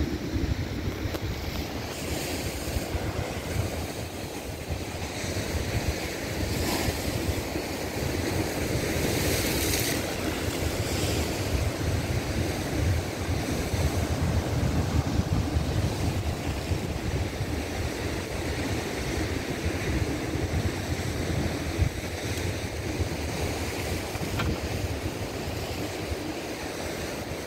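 Ocean surf breaking and washing over rocks in repeated surges, with wind buffeting the microphone.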